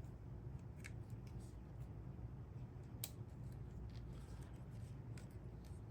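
A few light clicks and taps of small plastic vacuum parts being handled during reassembly, the sharpest about three seconds in, over a low steady hum.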